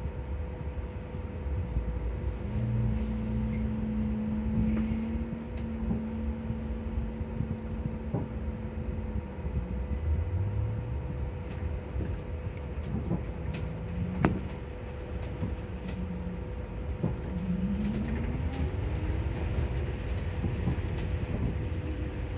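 Electric bus traction motor whining inside the passenger cabin over low road rumble and a steady hum. Its pitch holds steady for several seconds, steps up and down as the bus creeps forward, then climbs as the bus pulls away near the end.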